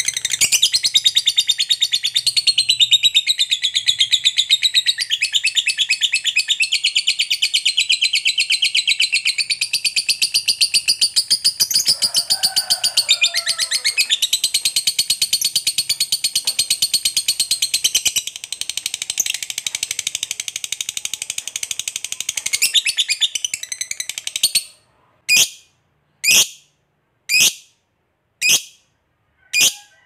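Lovebird giving a long unbroken 'ngekek' chatter, a rapid-fire run of high-pitched notes, which breaks off about 24 seconds in into single short chirps about once a second.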